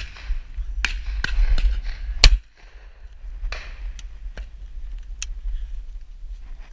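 Shotgun shots on a driven pheasant shoot: one loud, close shot about two seconds in, with several fainter, more distant shots before and after it.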